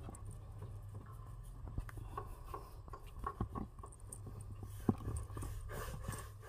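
Faint small clicks, taps and rubbing from hands handling wiring and parts around a car's under-dash fuse box, with one sharper click about five seconds in, over a low steady hum.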